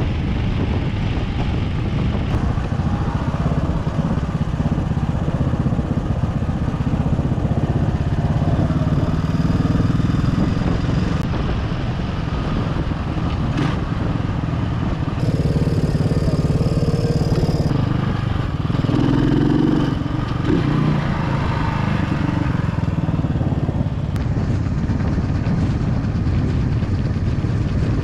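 1983 Yamaha SR500's 499 cc single-cylinder engine, fed by a Mikuni VM carburettor and exhausting through a Sym'z Craft megaphone muffler, running under way at road speed, heard from the rider's position. Its note rises and falls a few times as the revs change.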